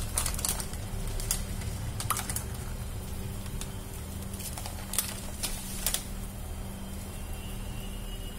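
Plastic packet crinkling and crackling in scattered clicks over the first six seconds, then going quiet, over a steady low hum.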